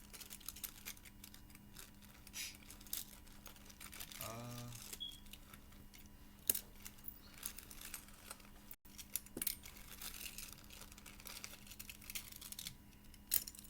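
Faint scattered clicks and rustles of plastic Beyblade parts and a launcher being handled, with a brief voice-like sound about four seconds in.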